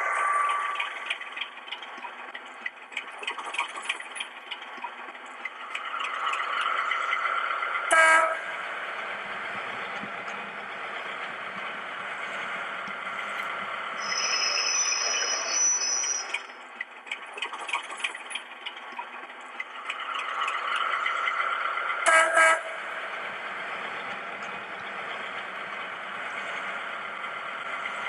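Class 73 electro-diesel sound file on a Hornby HM7000 Bluetooth sound decoder, played through a model locomotive's small speaker. Steady locomotive running sounds with a rising whine, two short horn blasts about fourteen seconds apart, and a brief high whistle in between.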